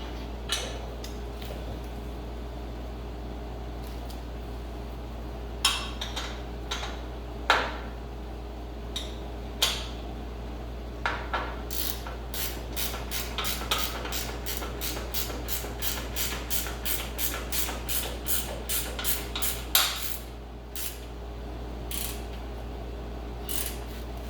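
Hand tools clicking and clanking, then a ratchet wrench worked in an even run of clicks, about three a second, for several seconds, over a steady low hum.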